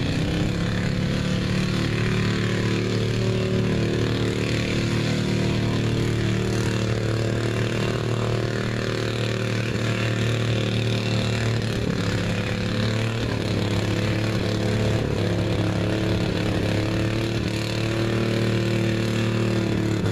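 Ford pickup truck's engine held at steady revs as the truck pushes through a mud bog pit, the pitch climbing at the start and then staying nearly constant with a slight wavering partway through.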